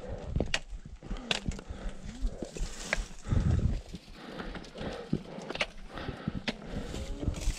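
Trekking pole tips clacking on rock and hiking boots stepping on a stone-paved mountain trail: irregular sharp taps, about one or two a second. A short low rumble comes about three and a half seconds in.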